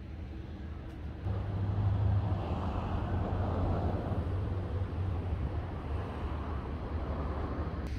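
Low, steady rumble of a passing motor vehicle that comes in suddenly about a second in, swells, then slowly fades.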